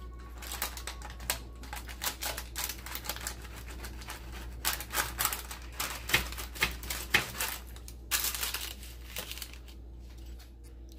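Pizza cutter wheel rolling through a baked pie-crust pizza with crisp pepperoni: runs of rapid crackling and crunching as the crisp crust gives way, stopping shortly before the end.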